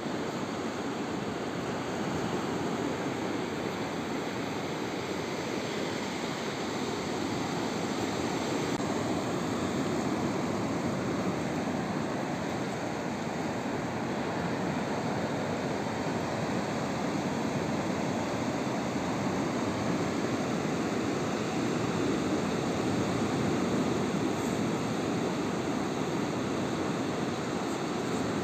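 Steady wash of sea surf on a beach.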